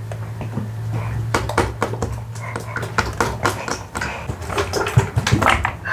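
Slime being squeezed and poked by hand, a quick irregular run of small wet clicks and pops.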